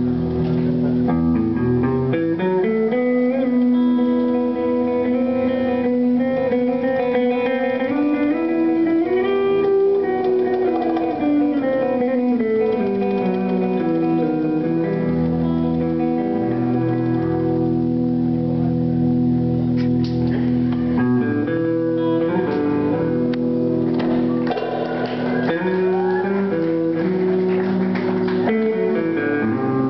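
Live rock band playing, with guitars to the fore, heard from the audience in a concert hall.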